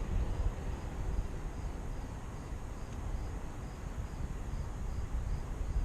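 Outdoor background: an uneven low rumble with a faint insect chirping regularly, about twice a second.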